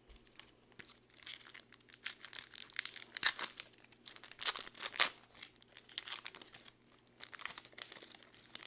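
Foil wrapper of a 2020 Donruss football card pack crinkling as it is torn open and the stack of cards is slid out: a rapid run of crackles, loudest in the middle.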